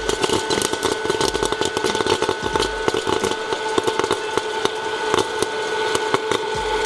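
Hot-air popcorn popper running: a steady fan-motor hum with many irregular sharp pops of kernels bursting.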